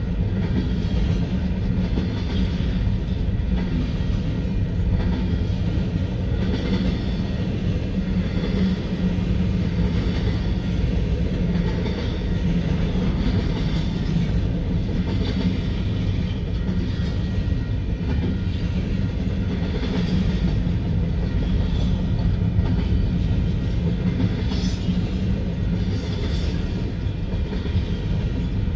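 Union Pacific double-stack intermodal freight cars rolling past at speed: the steel wheels on the rails make a steady, unbroken rumble.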